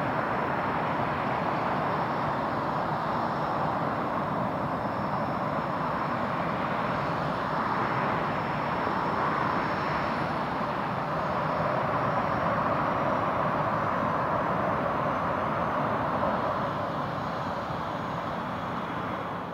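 Boeing E-3B Sentry's four Pratt & Whitney TF33-PW-100A turbofans running at climb power, a steady jet engine noise with a low rumble under it as the heavy, smoky aircraft climbs away.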